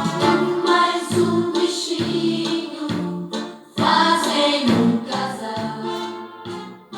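A song with singing voices playing from a car stereo head unit through two loudspeakers, running off a computer power supply. The music drops away briefly a little past halfway, then comes back at full level.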